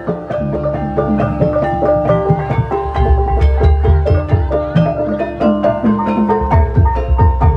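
Javanese gamelan accompaniment for an ebeg horse dance: struck metallophones ring out a busy, quick-moving melody over deep drum strokes.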